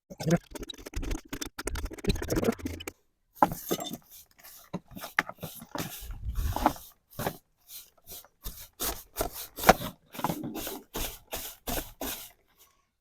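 A hand tool scraping and digging rotted wood out of a wooden window frame: a dense scrape for the first few seconds, then a run of short, sharp strokes about two a second.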